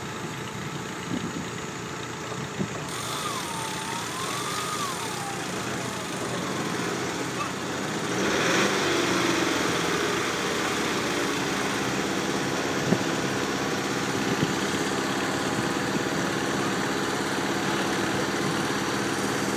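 Off-road challenge vehicle's engine running under load as it works through deep mud. It revs up harder about eight seconds in, then holds steady revs, with a couple of sharp knocks later on.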